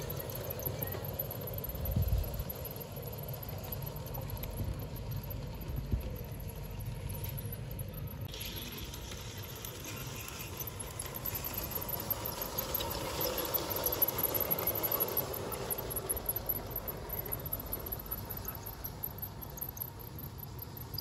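G-scale LGB garden-railway trains running along outdoor track, with a steady high-pitched squeal and light rattling. Two short thumps stand out, about two and six seconds in.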